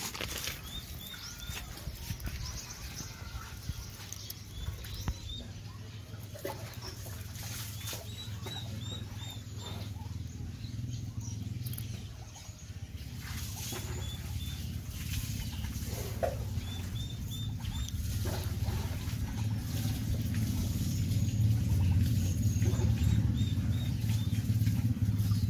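Small twig fire crackling and popping as it is lit and fed under a miniature cement stove, with twigs handled and a low rumble that grows louder in the second half as the fire catches. Short runs of three or four high bird chirps come now and then.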